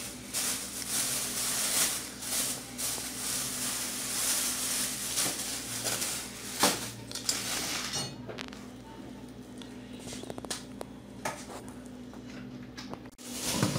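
Plastic bag rustling and crinkling as herbs are handled, dense for the first several seconds, then scattered clicks and clinks of kitchen pots. A steady low hum runs underneath.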